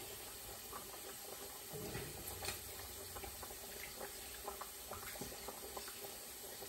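A lemon squeezed by hand over a small strainer, its juice trickling and dripping into a bowl in small irregular ticks, over a faint steady sizzle of pork frying in oil.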